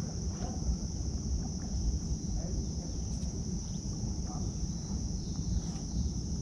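Steady high-pitched drone of insects, over a low rumbling noise, with a few faint chirps.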